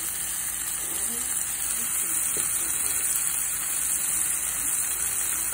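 Strip steak frying in oil in a pan with chopped onions and peppers: a steady sizzle.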